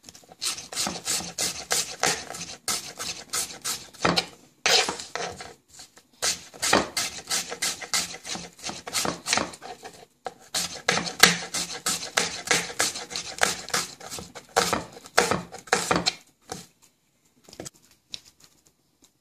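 Knife slicing an onion on a wooden cutting board: quick repeated cuts, several a second, each a sharp knock of the blade on the board. The chopping stops near the end.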